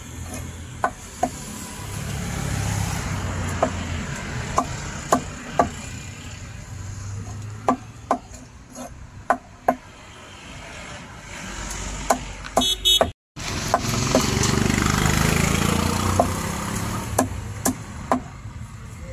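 Large knife chopping fish on a wooden block: sharp, irregular strikes about one a second, over the rumble of passing road traffic. A brief high beeping tone sounds about two-thirds of the way through.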